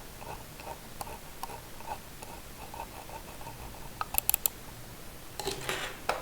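Budget wired computer mouse being tested: faint, evenly spaced soft ticks, then four quick sharp button clicks about four seconds in, and a denser clatter of clicks near the end.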